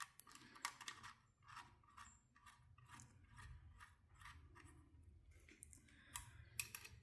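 Faint, irregular metallic clicks of hand tools working a rocker arm's adjusting nut and lock screw while the valve preload is being set.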